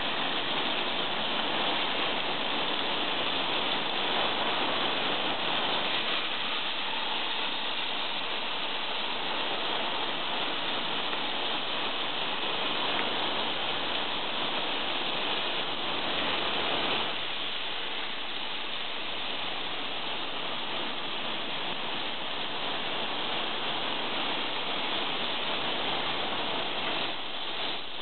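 Chicken pieces sizzling on a hot grill grate: a steady crackling hiss.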